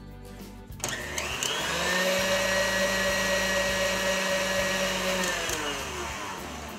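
KitchenAid stand mixer motor whirring with its wire whip beating chocolate mousse. It is switched on about a second in, rises in pitch as it speeds up, runs steadily, then winds down and stops near the end.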